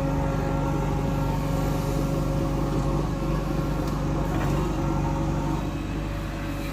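Heavy diesel engine running steadily under load, easing off slightly about five and a half seconds in.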